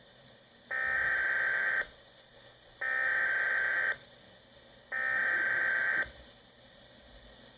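SAME digital alert header from a weather radio broadcast: three identical one-second bursts of screechy modem-like data, about a second apart. This encoded header opens an alert, here ahead of a severe thunderstorm warning.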